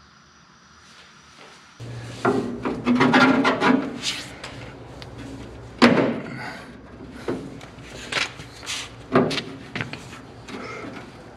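Irregular knocks, bangs and scraping from parts being handled while fitting a steel tilt dolly under a truck. It starts about two seconds in, and the sharpest bang comes about six seconds in.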